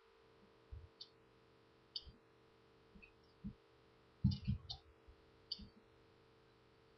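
Faint, scattered clicks of a computer mouse and keyboard in use, some with a soft knock, over a low steady hum.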